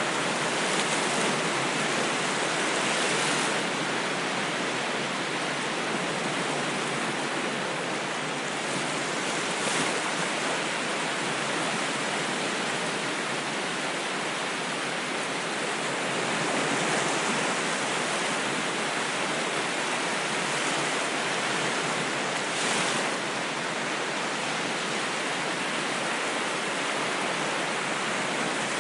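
Ocean waves washing in: a steady surf hiss, with a few brief louder swells several seconds apart.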